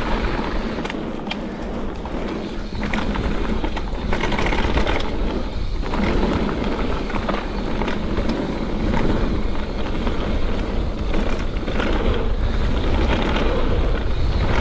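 Mountain bike running fast down a dirt trail: a continuous rush of tyre noise over packed earth and roots, with frequent clicks and rattles from the bike, and a deep rumble of wind on the microphone.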